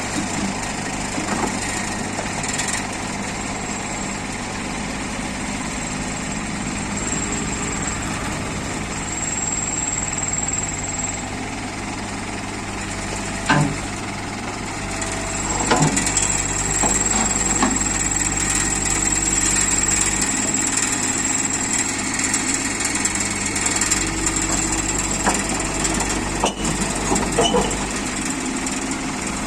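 Bobcat E27 compact excavator's diesel engine running steadily, with a couple of sharp clunks about halfway through and slightly louder running after them.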